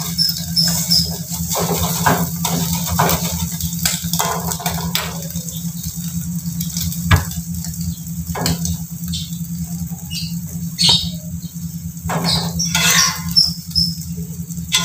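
Metal spatula scraping and knocking against a steel wok as fried food is turned and then lifted out, over a steady low hum. Rows of short high chirps sound near the start and again near the end.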